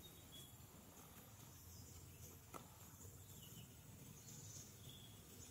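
Near silence: faint forest ambience with a few faint, short high chirps and a single small click about two and a half seconds in.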